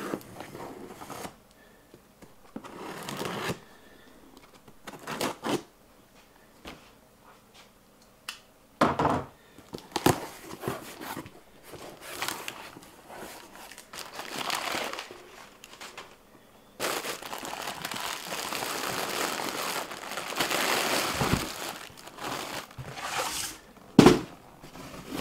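Unboxing sounds: a folding knife slitting the packing tape on a cardboard box, flaps opened, then crinkling and rustling of crumpled kraft packing paper and plastic wrap, heaviest in a long spell about two-thirds through. A sharp knock near the end as the boxed kit is handled.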